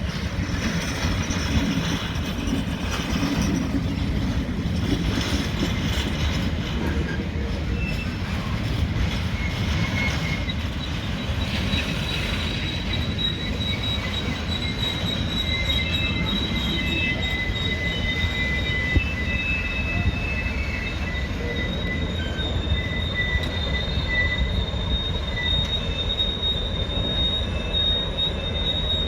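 Train rolling on the track with a continuous low rumble of wheels on rails. About a third of the way in, a thin high-pitched wheel squeal sets in and carries on, wavering between two pitches.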